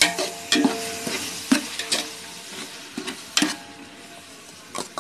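Metal ladle scraping and clinking against a large metal pot while stirring chopped tomatoes frying in oil, over a steady sizzle. The strokes come about twice a second at first and grow sparser later.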